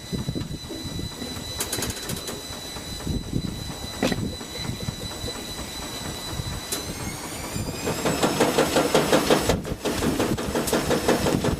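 Washing machine in its spin cycle: a steady motor whine rises in pitch about seven seconds in as the drum speeds up. Then comes loud, rapid, rhythmic knocking and rattling as the machine shakes, the wild spin that the title calls 'suicidal'.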